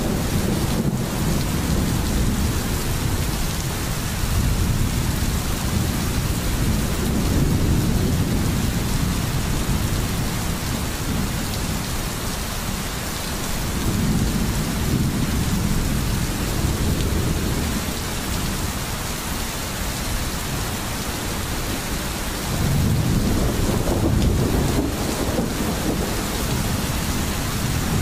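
Thunderstorm: steady rain with rolling thunder, low rumbles swelling and fading about three times.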